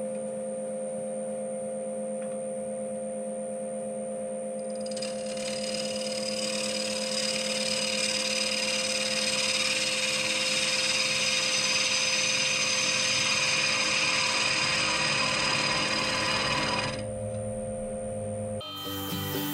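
Wood lathe running with a steady motor whine. About five seconds in, a steel turning tool starts cutting the face of the spinning walnut bowl, a dry hiss that goes on for about twelve seconds and then stops. Music comes in near the end.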